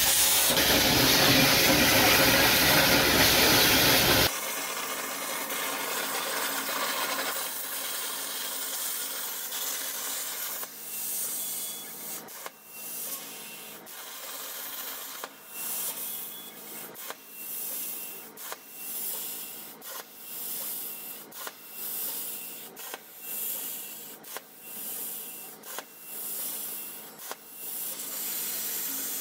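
CNC plasma cutter's torch cutting 10-gauge sheet steel: a loud, steady hiss of the arc and air. About four seconds in it drops to a quieter rasping hiss, which later swells and dips a little more than once a second.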